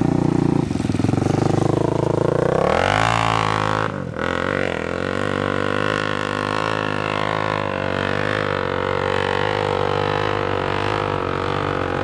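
Dirt-bike engines running. About three seconds in, one revs up sharply over about a second, dips briefly, then holds a steady, slightly wavering high-rev drone as a bike climbs a steep hill.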